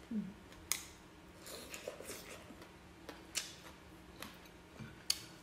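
Close-up eating sounds: a few sharp mouth clicks and smacks of chewing, with soft rustling of fingers picking at food on a plate.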